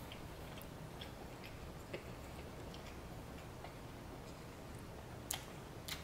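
Faint, close-miked chewing: soft wet mouth clicks at an uneven pace as a person chews a mouthful of sandwich, with two louder smacks near the end.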